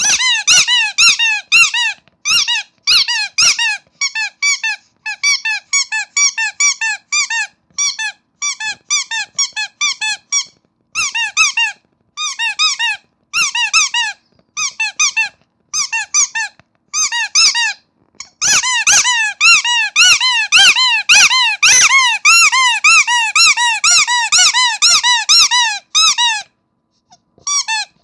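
Starfish squeaky toy squeezed over and over, each squeeze a short squeak that rises and falls in pitch. The squeaks come in quick runs with brief pauses, and are packed fastest and loudest from a little past the middle until near the end.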